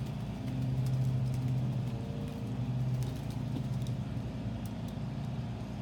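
African grey parrot bathing in its water cup, flapping and shaking its wings, with scattered small splashes and feather flutters. A steady low hum runs underneath and is the loudest sound.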